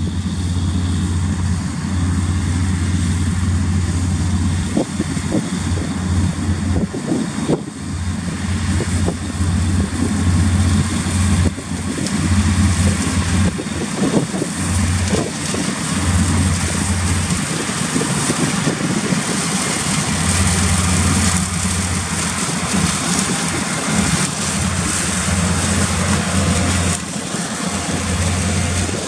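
Tractor-drawn potato harvesting machinery at work: a diesel engine runs steadily under load over a continuous mechanical din, with gusts of wind rumbling on the microphone.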